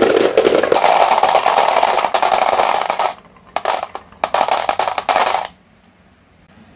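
Glass marbles rolling down a wooden slope and dropping into the plastic bed of a toy dump truck: a dense clatter of clicks that thins to a few scattered clicks about three seconds in and stops a couple of seconds later as the last marbles land.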